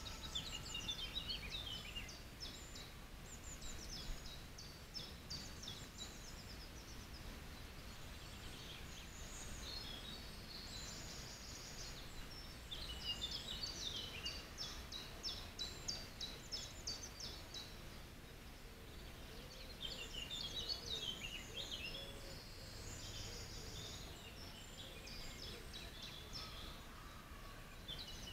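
Small songbirds singing short, quick high phrases of chirps and trills every few seconds, with pauses between, over a steady low hiss.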